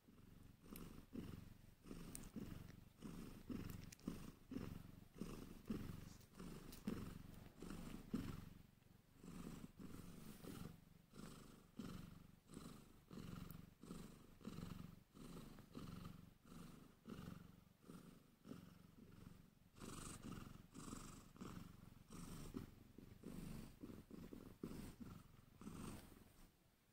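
Sphynx cat purring steadily and close, swelling and fading in a regular rhythm of about one and a half pulses a second while a newborn kitten nurses.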